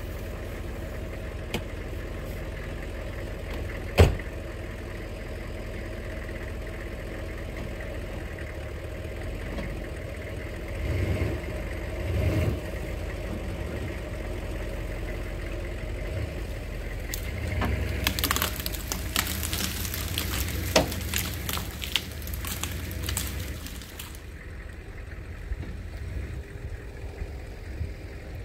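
Pickup truck engine idling, with a sharp knock about four seconds in and the engine swelling twice about eleven and twelve seconds in as the tow strap takes up on a downed tree log. From about eighteen seconds in the truck drags the log through brush, and branches crackle and snap for several seconds.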